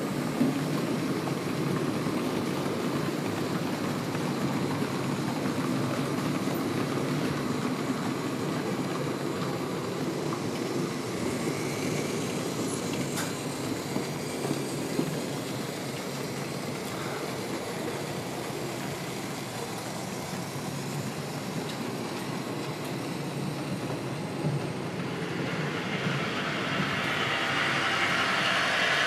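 HO scale Märklin model trains running along the layout track: a steady rolling rumble of metal wheels on rails, with a higher hiss growing over the last few seconds.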